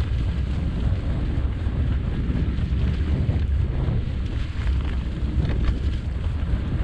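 Wind buffeting the camera microphone as a Canyon Spectral mountain bike rolls down a leaf-strewn dirt trail: a steady low rumble of wind and tyre noise, with a few faint clicks and rattles from the bike.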